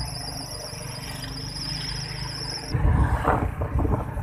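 Road rumble of a moving vehicle, with a steady high-pitched wavering whine that cuts off abruptly about two-thirds of the way through; after that the rumble grows louder, with rattling.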